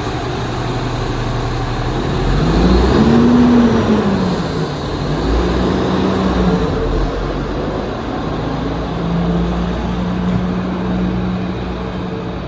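Four-axle truck's engine running, revving up about two seconds in and easing back down, then running steadily at a slightly higher speed.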